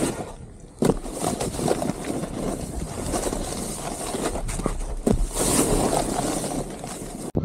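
Snowboard sliding and scraping over snow during a run, with wind rushing over the camera microphone; a couple of sharp knocks about one second and five seconds in. The sound cuts off suddenly just before the end.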